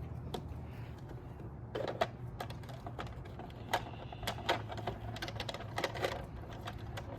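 Irregular plastic clicks and taps as the hull cover of a toy RC fishing boat is unlatched and handled, over a steady low hum.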